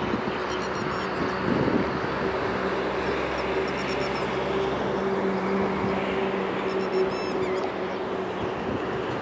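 Red-wattled lapwing calling in three short bouts of quickly repeated notes, about a second in, around three to four seconds in, and around seven seconds in, over a steady low drone. The recordist takes the calling for the bird defending a nest nearby.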